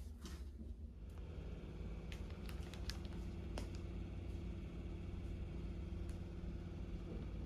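A steady low hum with a few faint, sharp clicks scattered through it: light handling noise.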